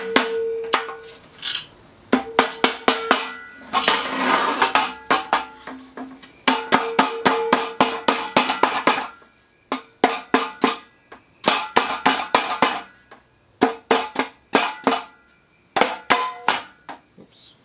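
Bursts of rapid hammer blows on a Rolls-Royce Viper jet engine combustor's metal casing, knocking the outlet nozzle loose. The hollow casing rings with a clear tone after the blows.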